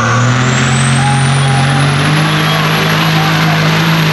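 Light pro pulling semi truck's diesel engine running hard under full load while dragging a pulling sled, with a high whine that rises in pitch over the first couple of seconds and then holds. The engine note steps up about halfway through.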